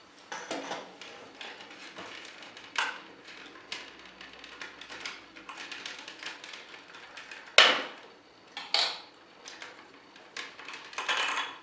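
Plastic Power Rangers Samurai Zord toys being handled, with scattered clicks and knocks of hard plastic parts; the loudest knock comes about two-thirds of the way through, followed by a longer rustle near the end.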